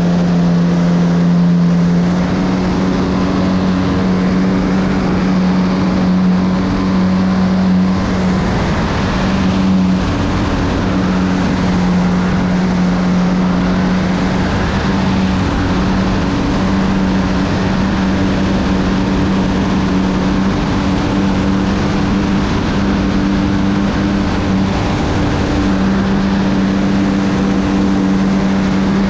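Small single-cylinder piston engine of an RC model airplane running in flight, heard up close from a camera mounted on the plane, with wind rushing over the microphone. The engine note holds steady, dipping and rising slightly a few times as the throttle changes.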